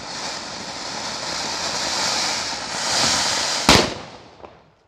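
Ganga Jamuna fountain firecracker hissing steadily as it sprays sparks. About three-quarters of the way through, one piece bursts with a single sharp bang. The hiss then dies away near the end.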